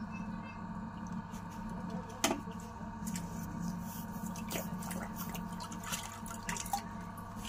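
Wet clay squelching and dripping under a potter's slip-covered hands as a large clay water pot (matka) is smoothed on a spinning potter's wheel, with many small wet clicks and one sharp click about two seconds in. A steady hum runs underneath.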